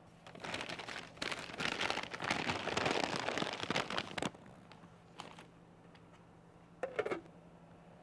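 Popped popcorn rustling and crackling in a brown paper bag for about four seconds, a dense crinkly sound made of many small clicks that stops abruptly; a couple of brief faint knocks follow later.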